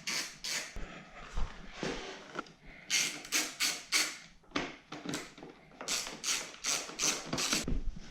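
Socket ratchet clicking in short back-and-forth strokes, in a few runs of about three strokes a second, as a bolt is undone.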